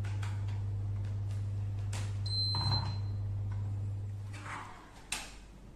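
Weather station display console giving one short, high electronic beep as it is powered up from its adapter, about two and a half seconds in, among light clicks and knocks from handling it, over a steady low hum.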